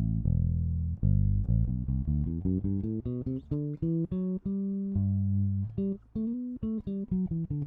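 Alien Audio Constellation electric bass played straight into the interface with no processing, both pickups on and the tone control cut all the way, so it has little top end. It plays a held note, then a quick run of plucked notes, another held note about five seconds in, and more notes near the end.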